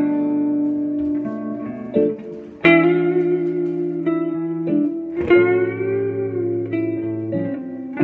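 Clean electric guitar playing a jazz melody, single picked notes over looped chords that keep sounding underneath. A strong note about two and a half seconds in, and another just past five seconds that is bent and held with vibrato.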